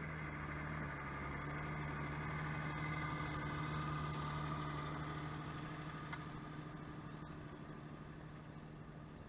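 Deutz-Fahr Agrostar 6.81 tractor's diesel engine running at a steady speed, fading gradually over the second half.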